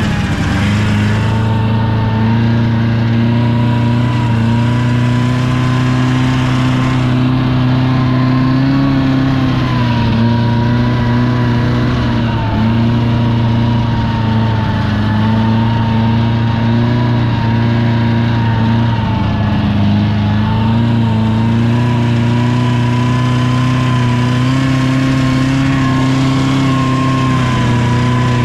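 A vehicle engine running at steady revs, its pitch drifting slightly up and down without a break.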